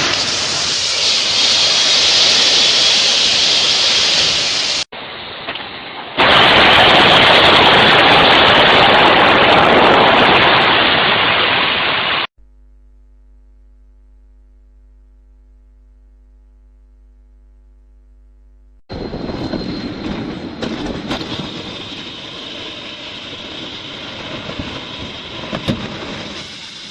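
Aircraft emergency evacuation slides inflating: a loud, steady rushing hiss that cuts off abruptly and starts again in a second clip. Then comes a stretch of low steady hum, and near the end a quieter, uneven rushing noise.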